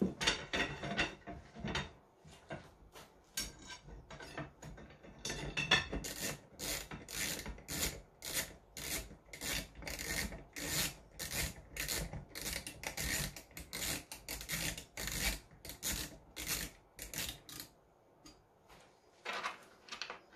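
Hand screwdriver driving screws to fix an aluminium gantry plate to a CNC router frame: scattered scraping and handling at first, then a long, steady run of short rasping turns, roughly two to three a second, that stops near the end.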